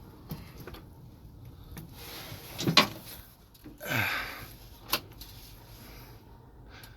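A few sharp clicks and knocks, the loudest a little under three seconds in and another about five seconds in, with a short noisy sweep falling in pitch around four seconds in.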